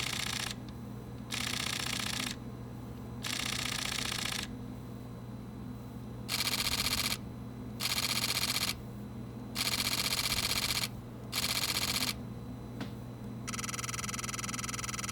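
Fujifilm mirrorless camera shutters firing in continuous-shooting bursts: seven short bursts of rapid clicking, each about a second long with pauses between. Near the end comes a longer, steadier buzzing burst, the electronic shutter firing with an artificial shutter sound added.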